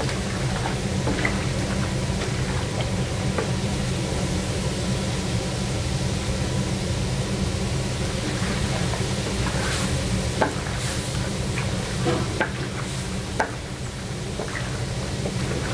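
Chicken pieces being stir-fried in a large stainless-steel cauldron, a long wooden paddle turning them with a faint sizzle. The paddle scrapes and knocks against the pan, with a few sharper knocks late on, over a steady low rumble.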